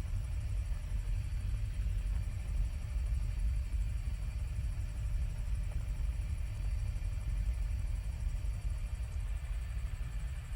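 Helicopter in flight: a steady low rumble with a faint, steady high whine above it.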